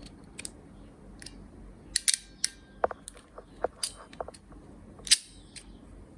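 RJ45 crimping tool clicking and snapping as a plug is crimped onto a Cat6 cable: about ten sharp, irregular clicks, the loudest about two seconds in and again about five seconds in.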